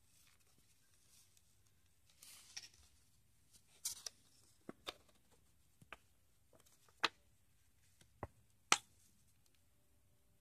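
Quiet room with scattered light handling noise: about nine sharp clicks and a couple of brief rustles, irregularly spaced, as the phone is held and moved.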